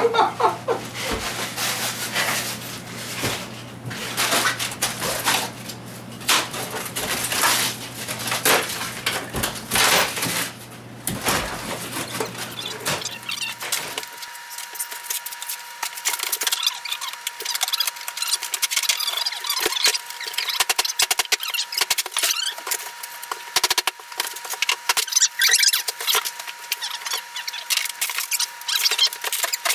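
Foam-board and shell model-railroad mountain scenery being pried and broken apart by hand: many sharp cracks and snaps in quick, irregular succession.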